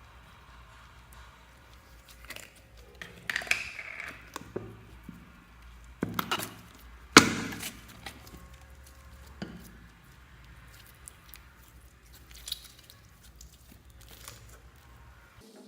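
Slime being mixed by hand, giving a run of sharp crackling pops and clicks at uneven intervals. The loudest pop comes about seven seconds in.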